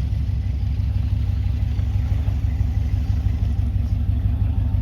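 A vehicle engine running low and steady, a deep rumble with a fast, even pulse.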